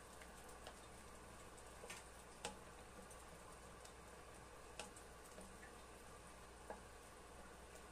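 Quiet stirring of a thick cream sauce with a wooden spoon in an enamelled pan: a few faint clicks where the spoon knocks the pan, over a low steady hum.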